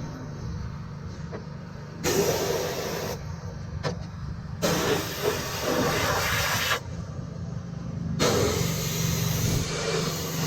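Pressure washer spraying in bursts: a loud hissing jet that starts and stops three times as the trigger is pulled and released, over a steady low hum.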